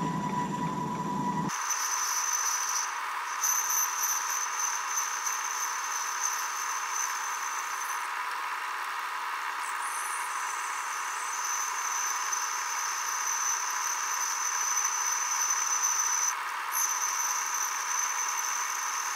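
Metal-turning lathe boring out a small engine cylinder block with a slender boring bar. The cut carries a steady high-pitched whine that breaks off briefly a few times, and the sound changes abruptly about a second and a half in. The boring bar was vibrating during this boring, which left the bore less smooth than wanted.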